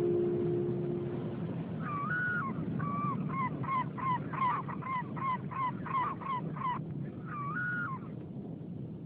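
A gull calling: one drawn-out call, then a fast run of short, repeated calls at about two or three a second, and another drawn-out call near the end. Underneath is a steady low rumble, and a last plucked guitar note dies away in the first second or so.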